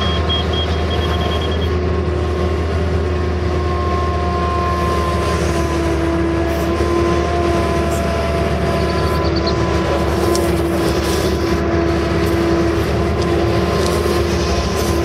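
Case CX160 excavator's diesel engine and hydraulics running steadily while digging, heard from inside the operator's cab. A high-pitched beeping sounds briefly in the first couple of seconds.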